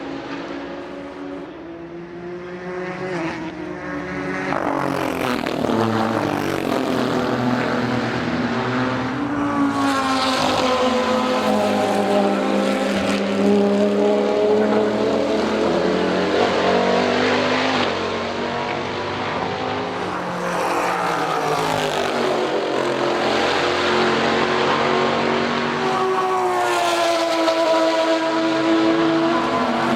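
Sports-prototype and GT race cars at speed going past the track in close succession, engine notes overlapping. Their pitch climbs as they accelerate through the gears and drops away as each car passes. The sound builds a few seconds in, eases briefly past the middle, then swells again.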